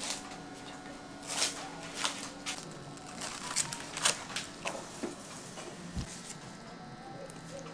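Plastic cling wrap crinkling and light knocks as gloved hands handle a stainless steel cake ring. A single dull thud about six seconds in as the ring is set down on a metal utensil holder.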